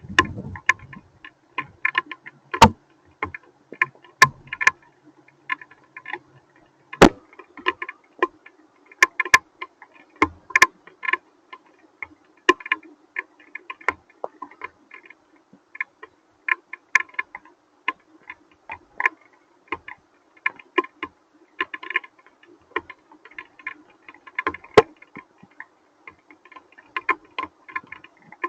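Hailstones striking hard surfaces: a dense, irregular ticking and clicking, with scattered louder single cracks.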